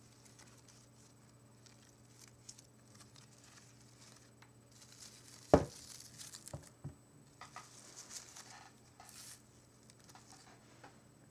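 Fingers brushing and rustling through a bouquet of fresh flowers, petals and leaves making soft crinkly touches. About halfway through comes one sharp knock, the loudest sound, followed by a couple of lighter taps.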